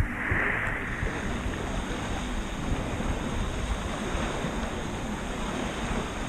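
Steady rush of wind and moving water, with a low rumble from wind on the microphone.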